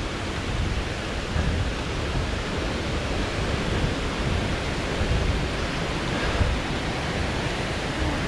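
Steady rush of water from a nearby mountain waterfall, with an uneven low rumble underneath.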